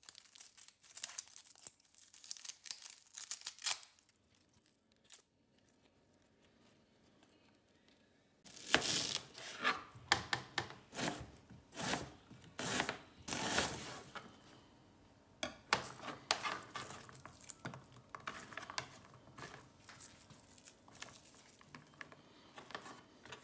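An onion's dry skin crackling and tearing as it is peeled with a kitchen knife. After a few seconds of near silence comes a quick run of knife strokes as the onion is sliced into half rings on a plastic cutting board; the strokes grow quieter near the end.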